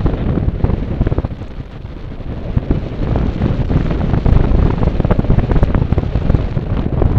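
Airflow buffeting a helmet camera's microphone on a paraglider in flight: a loud, gusty rumble that grows stronger from about three seconds in.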